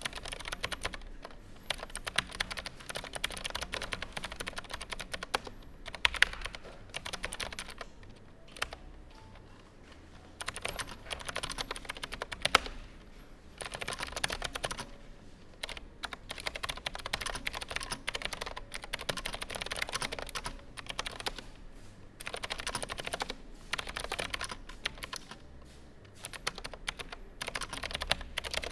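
Typing on an AZIO Classic mechanical keyboard: fast runs of sharp key clicks and clacks, broken by a few brief pauses.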